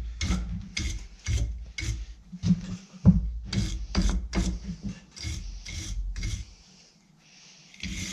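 Hand file rasping back and forth on a steel bar in quick strokes, about two to three a second, filing layout marks into the stock; the strokes stop briefly near the end and then start again.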